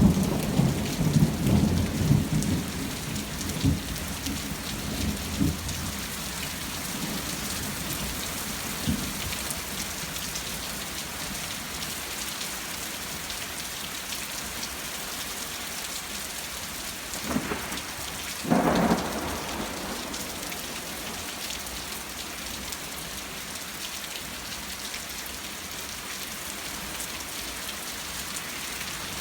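Thunderstorm: rain falling steadily, with a low rumble of thunder dying away over the first few seconds. Two short, louder bursts come about two-thirds of the way through.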